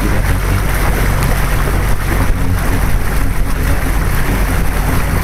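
Motor of an open canal tour boat running steadily at cruising speed, a low even drone, with a rush of water and wind noise over it.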